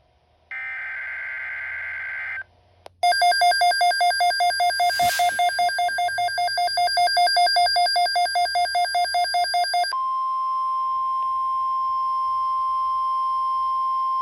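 A NOAA Weather Radio emergency alert: a burst of the SAME digital header's warbling data tones, then a weather radio receiver's alarm beeping rapidly, about three pulses a second, for about seven seconds, then a steady single-pitched alert tone (the 1050 Hz NWR warning alarm tone) that holds to the end.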